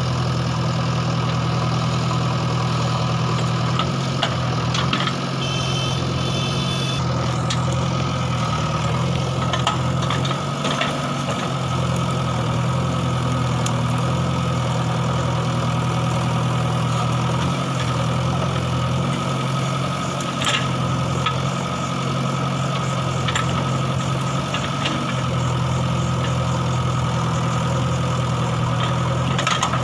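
JCB backhoe loader's diesel engine running steadily, with a few brief sharp knocks along the way.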